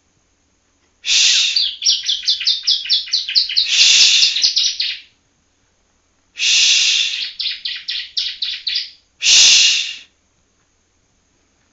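Young yellow ciblek (a prinia) practising its song: three loud phrases, each opening with a harsh, buzzy note, the first two followed by a quick run of short chirps at about four to five a second.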